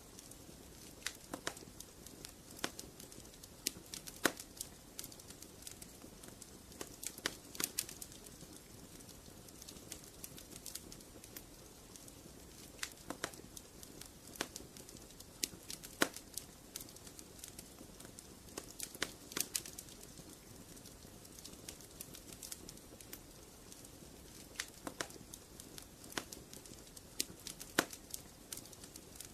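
Wood fire crackling in a fireplace: irregular sharp pops and snaps over a soft, steady hiss.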